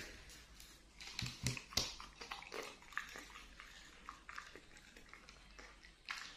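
A dog chewing and biting a fried tofu-skin spring roll: irregular wet smacks and crisp clicks of its jaws. A few louder knocks with a low thud come between one and two seconds in.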